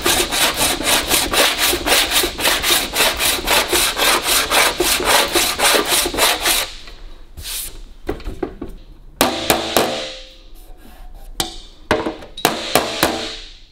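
Body file rasping across an aluminium bonnet panel in quick, even strokes, about four a second, which stop after about six seconds. Then come light taps of a flipper on the panel against a dolly, in two short clusters with a metallic ring, to raise the low spots.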